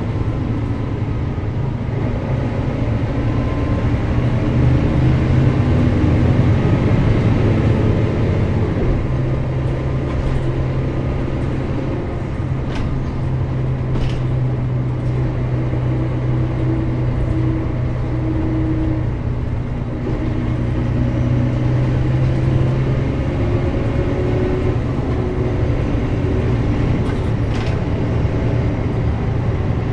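Mercedes-Benz O405GN² articulated bus running under way, its engine humming steadily, with the pitch shifting several times as the bus drives.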